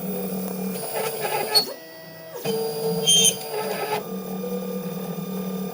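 Wombot Exilis XL 3D printer printing, its motors running with steady tones that shift in pitch as the head moves, broken by short, sharp, high squeaks about one and a half and three seconds in. These are the screeches the owner calls god-awful.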